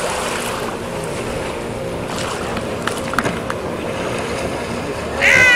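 Harbour water and wind on the microphone, with a few small splashes from a kayak roll in the middle. Just before the end comes a loud, high whoop that falls in pitch.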